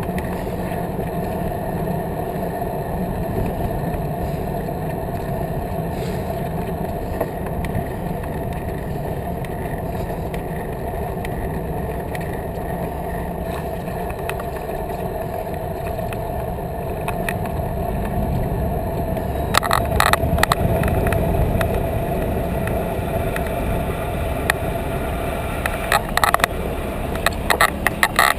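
Bicycle ride recorded on a GoPro: a steady rumble of the tyres rolling over paving stones. About twenty seconds in there is a run of sharp clicks and rattles, and more come near the end.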